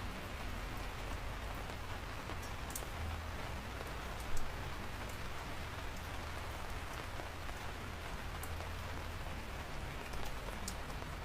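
Steady rain falling, with a few sharp drip ticks scattered through it and one brief louder burst about four seconds in.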